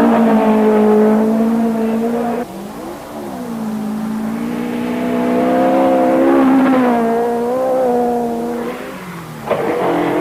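Rally car engines at high revs. One engine note is held high and cuts off abruptly about two and a half seconds in. A second engine then climbs, holds high revs and drops away near the end.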